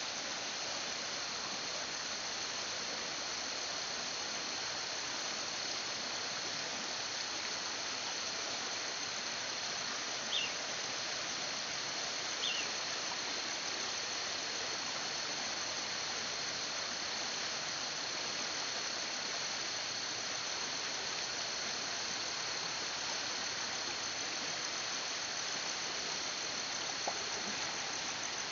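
Steady rushing of a flood-swollen stream, with a thin, steady high whine over it. Two short falling chirps come about ten and twelve seconds in.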